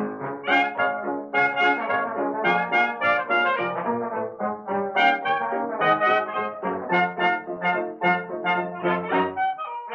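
Background music: brass instruments playing a quick tune of short, separate notes with a steady beat.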